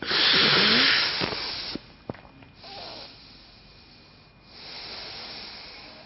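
A man breathing hard: a loud, forceful exhale lasting about a second and a half, a click, then two quieter breaths, the second longer and near the end.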